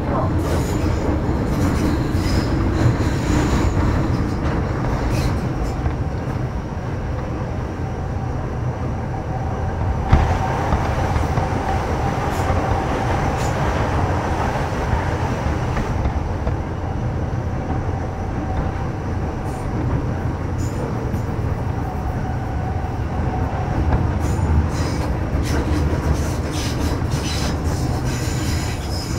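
MTR Metro Cammell M-Train electric multiple unit with GEC GTO chopper traction running between stations, heard on board: a steady rumble of wheels on rail with a held whine for several seconds in the middle and light ticks near the end.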